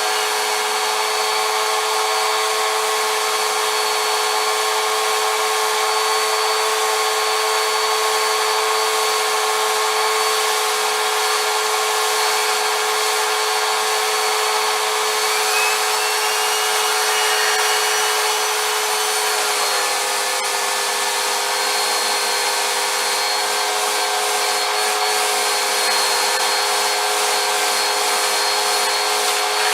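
Vacuum cleaner motor running steadily with a high whine while cleaning a motorhome's interior. About twenty seconds in, its pitch dips slightly, as when the nozzle's airflow is restricted against a surface.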